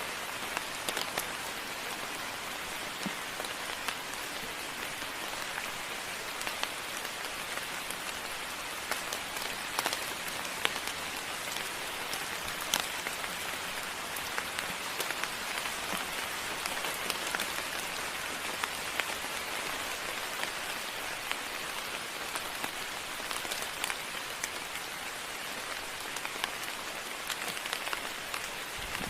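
Steady moderate rain falling, with scattered close raindrops tapping sharply.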